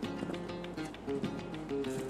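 Background music: a melody of short pitched notes changing every fraction of a second, with faint ticking.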